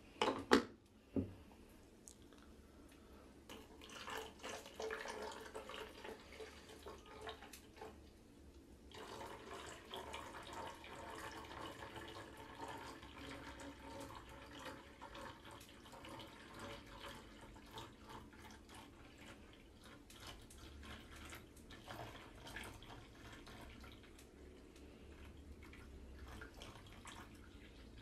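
Water poured from a plastic pitcher in a thin stream into the filling hole of a lidded plastic ice cube tray: a light trickling splash, patchy at first and steady from about nine seconds in. A few sharp clicks near the start.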